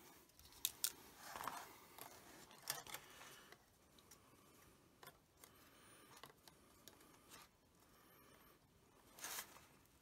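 Faint plastic clicks and scraping as a propeller is twisted onto a Parrot Bebop 2 drone's motor by hand, with a louder scrape near the end.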